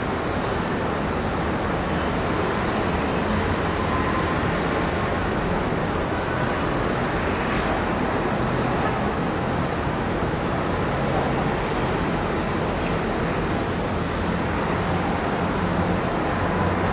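Steady outdoor city noise, a continuous hum of distant road traffic with no single event standing out.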